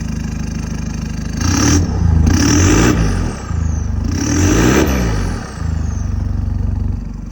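Nissan Navara pickup's engine running through a newly fitted custom full exhaust: idling, then revved twice, each rev rising and falling back, before settling to idle again.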